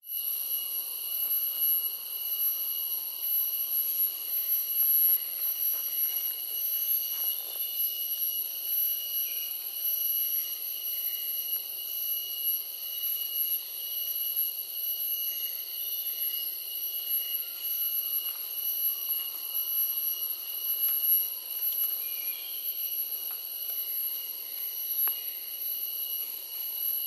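Rainforest insect chorus: a steady, unbroken high-pitched drone in several tones at once, with a few faint clicks and faint distant calls underneath.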